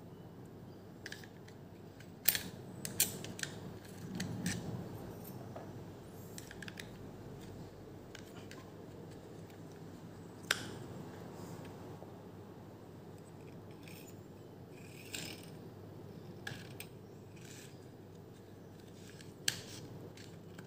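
Scattered small clicks and taps of plastic and metal parts as a return spring, plunger tube and breech are worked by hand into a dart blaster's gearbox shell. The loudest clicks come about two seconds in, and a sharper one about ten seconds in.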